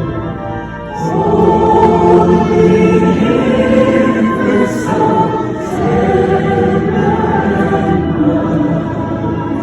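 A large audience singing a Christmas song together as a choir, with a concert band accompanying, in sung phrases with short breaths between them.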